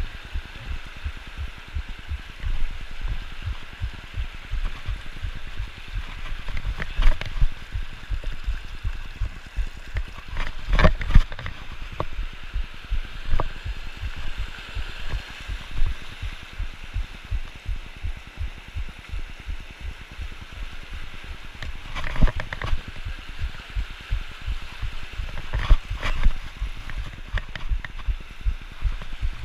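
Mountain creek rushing over boulders: a steady hiss of white water. It is overlaid by frequent low thumps on the microphone and a few sharper knocks, about four times.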